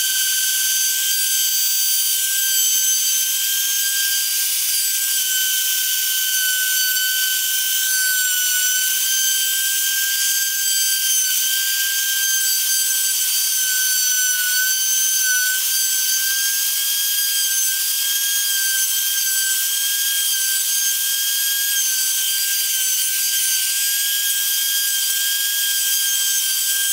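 CNC router spindle driving a carbide insert 90° V-groove bit as it engraves plywood: a steady high-pitched spindle whine over the hiss of the bit cutting wood. The whine dips slightly in pitch a couple of times, around eight and fifteen seconds in, as the cut loads the spindle.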